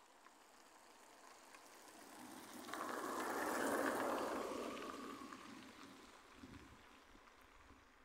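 A vehicle passing by, its tyre and road noise rising, peaking about halfway through and fading away over a few seconds.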